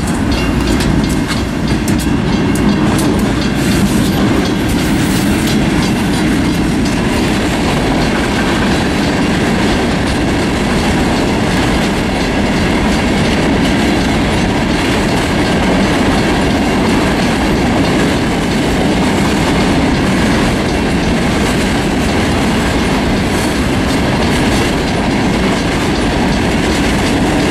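Loaded rock train rolling past: the last of its yellow Union Pacific diesel locomotives go by in the first few seconds, then a steady procession of loaded hopper cars with a continuous rumble and steel wheels clicking over the rail joints.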